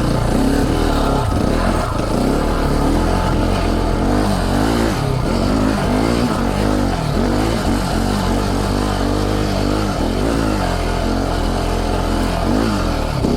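KTM 690 Enduro's single-cylinder LC4 engine under hard load climbing a steep, loose hill, its revs rising and falling again and again as the throttle is worked.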